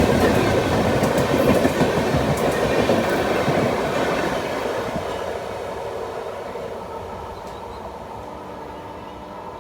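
Indian Railways express train rolling past on the track, with sharp clicks from the wheels early on. Its rumble fades steadily as the train moves away.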